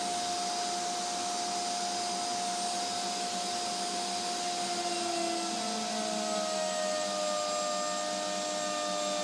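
Table-mounted router running at speed with a bearing-guided flush-trim bit, cutting the edge of two stacked wooden discs. Its steady whine drops a little in pitch about halfway through as the bit takes the cut.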